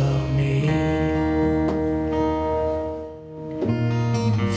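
Acoustic guitar and electric bass playing slow, held chords live. The sound dies away briefly about three seconds in, then a new chord is struck.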